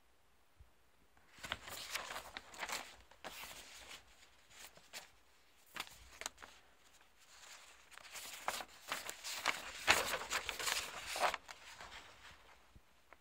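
Paper rustling and crackling as sheets of paper are handled: a pamphlet page is moved aside and a folded letter is picked up and held. The rustling starts about a second in, comes in uneven bursts, is loudest near the end, and stops shortly before it.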